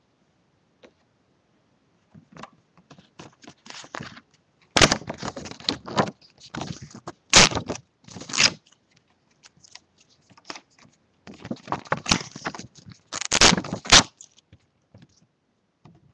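A printed card being handled: irregular rustling and scraping in two main bouts, about five seconds in and again about eleven seconds in.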